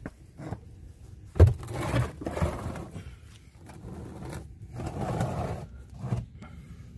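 A sharp knock about one and a half seconds in, followed by two bouts of scraping and a click near the end: metal and plastic being handled and dragged while the car's axle is being readied to pull out.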